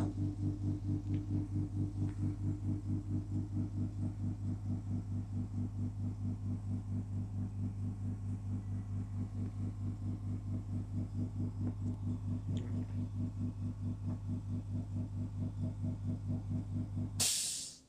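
Steady electric hum from a milk-tea vending machine, pulsing evenly several times a second, which cuts off abruptly near the end.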